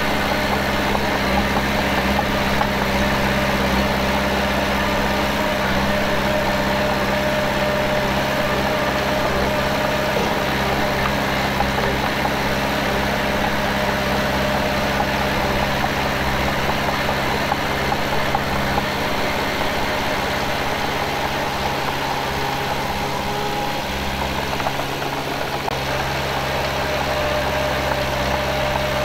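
Diesel engine of heavy earthmoving machinery running steadily at a constant speed, with a brief dip in the deep rumble about three-quarters of the way through.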